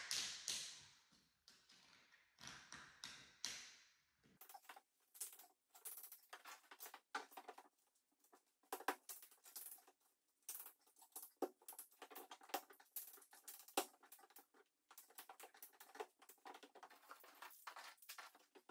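Faint, light clicking and tapping of plastic tile-leveling clips and wedges being set in the joints between floor tiles. A few short scraping swells come first, for about four seconds.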